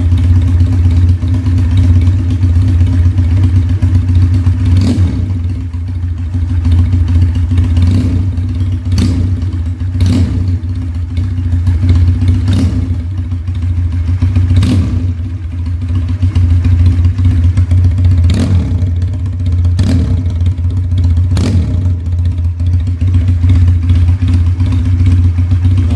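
Benelli Patagonian Eagle 250's two-cylinder engine idling steadily, its carburettor idle screw turned up after it stalled at too low an idle. Short sharp clicks sound every second or two over the idle.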